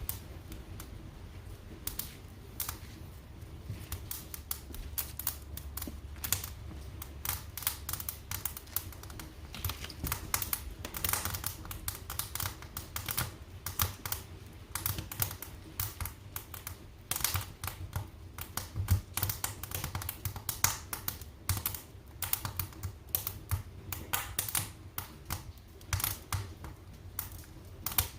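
Wood fire crackling in a fireplace: irregular sharp pops and snaps, some dense and some sparse, over a low steady rumble of the flames.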